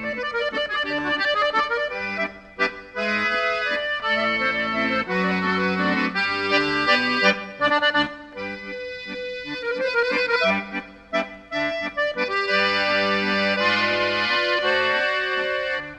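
Accordion music: a tune of quick notes over held lower chords.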